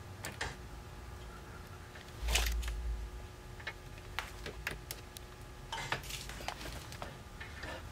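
Hands fitting a bumper mounting bracket and plastic push pins into the plastic front bodywork of a side-by-side: scattered light clicks, taps and scrapes, with a dull bump about two and a half seconds in and a further cluster of clicks around six seconds.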